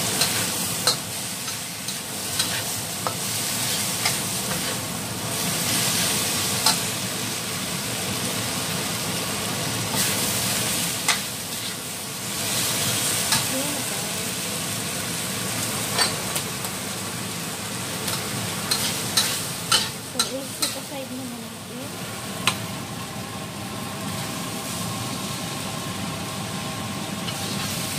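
Squid stir-frying in a wok: a steady sizzle, with a metal spatula repeatedly clanking and scraping against the pan as the food is tossed.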